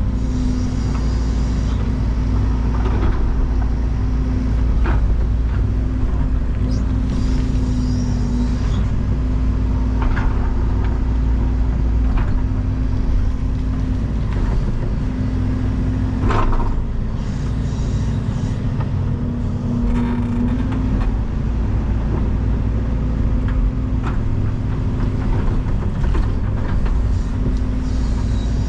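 Excavator's diesel engine running steadily under load while digging, with a humming tone that comes and goes as the machine works and several sharp knocks from the bucket scattered through.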